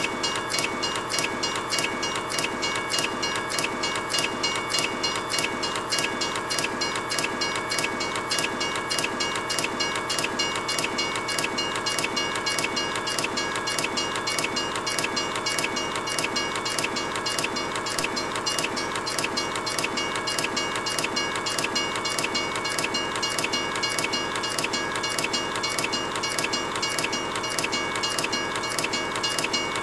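Train running along the rails with a steady clickety-clack of the wheels, about three beats a second, and a few faint steady high tones over it.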